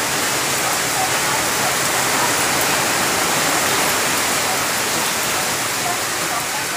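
Steady rain falling on leafy trees, an even hiss with no breaks.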